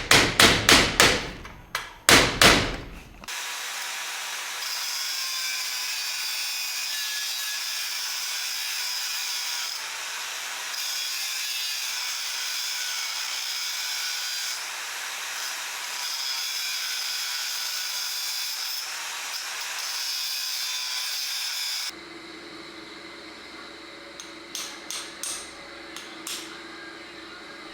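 A quick run of hammer strikes on metal, then a long steady high-pitched hiss of abrasive work on rusty pistol steel, with a few brief pauses. It stops about 22 seconds in, leaving a faint hum and a few light taps.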